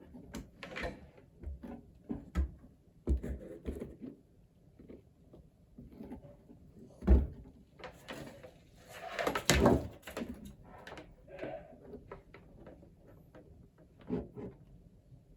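Parts of a cough assist machine being handled and fitted together: irregular knocks, clicks and rustles, the loudest knock about seven seconds in and a longer scraping rustle around nine to ten seconds.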